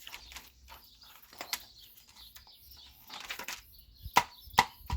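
Sharp plastic clicks and light taps from a disassembled computer keyboard's parts being handled, with two louder clicks about four seconds in.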